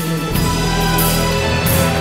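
Music: held tones, with a deep bass note coming in about a third of a second in.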